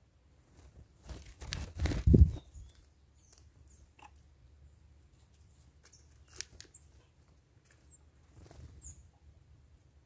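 Small birds at a garden feeder: a loud rustling whoosh about a second in, then a few faint pecking clicks and two short, high chirps near the end.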